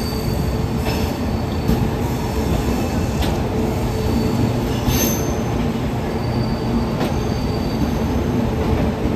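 Passenger train coaches rolling past close by: a steady rumble of wheels on track, with a few sharp clicks over the rail joints and brief thin wheel squeals.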